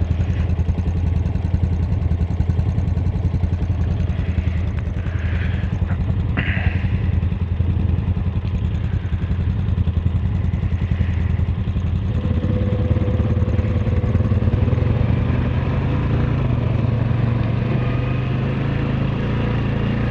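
Honda Rubicon ATV's single-cylinder engine running steadily under way on a dirt trail. Its note climbs a little about twelve seconds in as it picks up speed.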